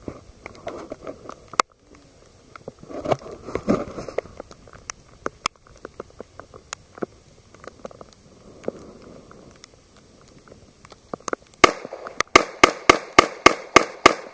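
Gunfire from a 1911 pistol. A few sharp single cracks come in the first half, then near the end a rapid string of about ten shots in under three seconds, each ringing out briefly.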